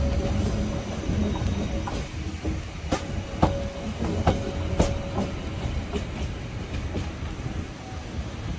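Haeundae Blue Line Park beach train rolling past at close range: a steady low rumble of wheels on rail, with irregular clicks and a faint wheel squeal now and then. It grows gradually quieter as the cars go by.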